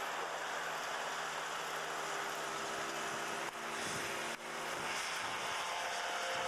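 Ultralight aircraft engine and propeller running steadily: a constant noisy drone with a steady engine pitch, briefly dipping twice in the middle.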